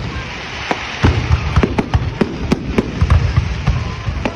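Fireworks going off: a rapid, irregular run of bangs and crackles over a continuous hiss.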